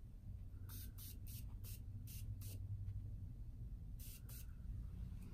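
A makeup spray can misting a pink beauty sponge in about nine short hissing sprays, a quick run of them in the first couple of seconds and two more near the end.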